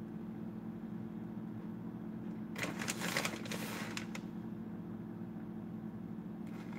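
Plastic bag of shredded cheddar crinkling for about a second and a half near the middle as cheese is taken from it, over a steady low hum.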